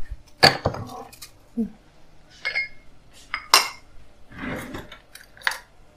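Slotted wooden spoon stirring a thick tomato-and-vegetable sauce in a stainless steel pot, knocking and scraping against the pot several times, with one longer scrape about four and a half seconds in.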